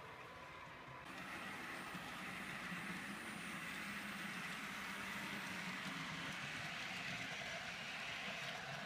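Model train running on track: a steady rolling rattle of small metal wheels with a low motor hum as the red coaches and goods wagons pass close by. It grows louder about a second in.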